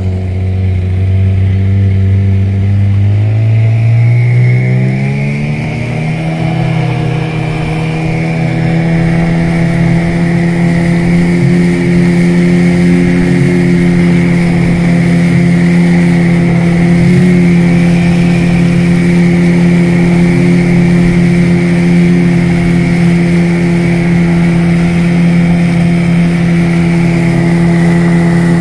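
15-horsepower Suzuki outboard motor on a longboat, opening up from a low speed about three seconds in, its pitch climbing over a few seconds, then running steadily at full speed. Water rushes along the hull beneath it.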